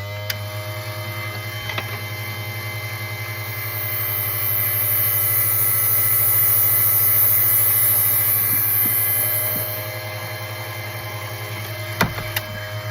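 Electric RC tire truer's motor spinning a foam tire with a steady hum. From about three and a half seconds in to about ten seconds, the cutting bit shaves foam off the spinning tire to flatten it, adding a louder hiss. Two sharp clicks near the end.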